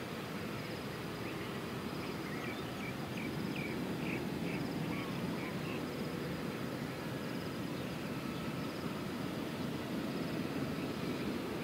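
Steady outdoor background noise with insects trilling in the grass, a faint high trill recurring every second or so, and a run of short bird chirps in the first half.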